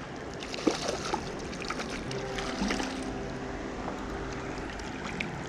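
Creek water running steadily while a hooked rainbow trout splashes and thrashes at the surface as it is reeled in, with several short splashes.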